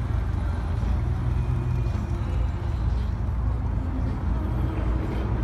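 Classic first-generation Ford Mustang fastback's engine running low and steady as the car drives slowly past.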